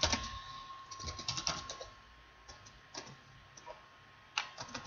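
Computer keyboard typing in short bursts of quick keystrokes with brief pauses between them, as text is entered into form fields.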